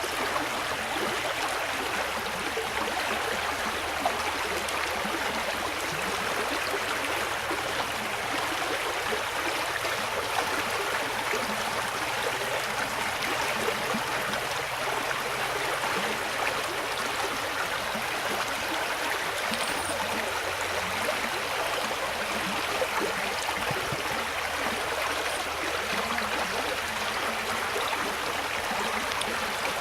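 A small brook babbling steadily over stones, a continuous rushing and gurgling of running water.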